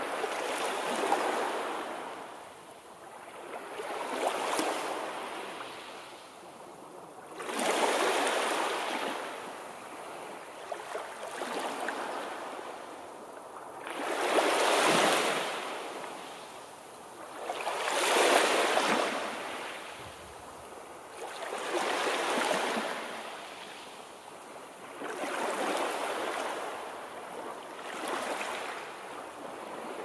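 Sea waves breaking and washing up a shore, a new swell rising and falling about every three to four seconds.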